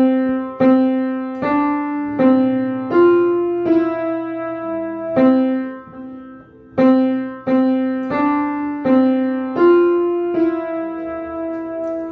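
Piano played slowly: a simple melody of single notes, each struck and left to ring, with a short pause about halfway through.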